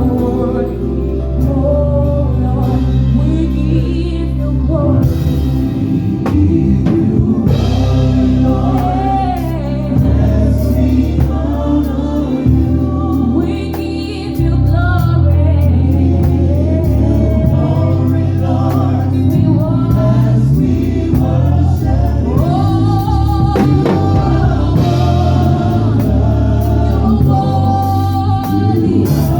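Gospel praise and worship music: singers over a band with heavy bass, the bass dropping out briefly about halfway through.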